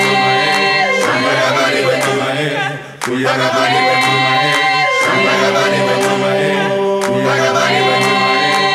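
Background music: an a cappella choir singing held chords that change every second or two, with a brief dip in loudness just before the three-second mark.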